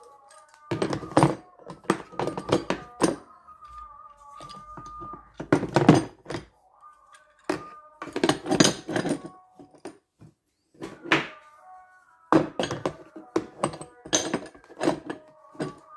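Hard objects knocking and clattering as they are handled and set down, in irregular clusters of sharp thunks with short pauses between. A faint steady tone sits underneath in the gaps.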